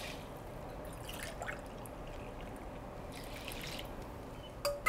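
Dashi stock trickling and dripping from a stainless steel pot into a pot of washed rice, faint. A short knock about four and a half seconds in.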